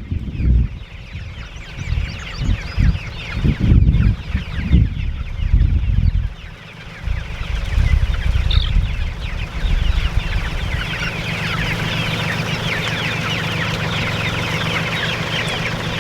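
A flock of young meat chickens peeping and clucking continuously, many short high calls overlapping, growing denser in the second half. Low thumps sound in the first few seconds, and a steady low rumble runs underneath from about halfway.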